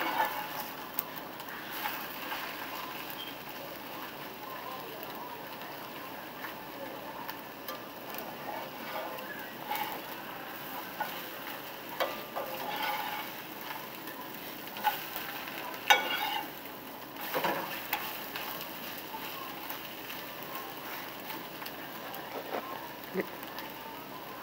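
Corn tortilla pieces and egg sizzling in a hot oiled cast-iron skillet as the egg cooks through, with a steady frying hiss. A metal spatula stirs and knocks against the pan a few times, mostly in the second half.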